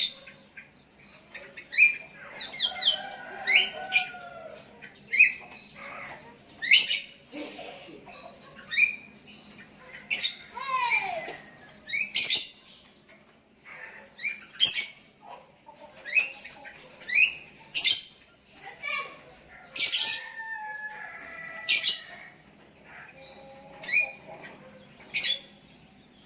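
Sooty-headed bulbuls calling back and forth: short, sharp, high notes repeated every second or two, one bird answering another.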